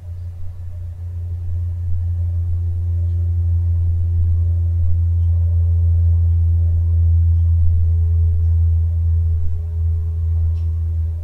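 Steady low droning hum that builds over the first two seconds and then holds, with fainter steady tones above it.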